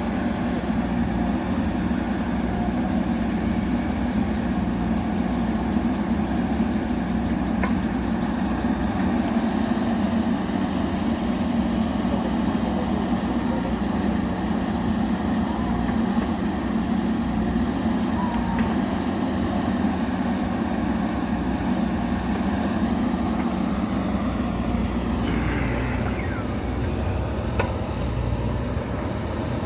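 JCB backhoe loader's diesel engine running steadily under work, with a small change in its note near the end.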